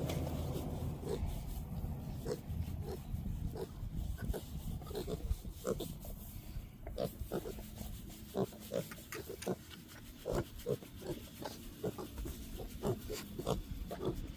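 Kunekune pigs grunting: many short grunts, coming more often in the second half.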